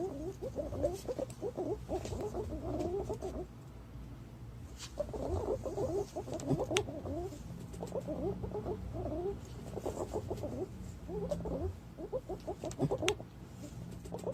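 Green pigeons calling in bouts of rapid chattering notes. Each run lasts about three to four seconds, with short pauses between runs.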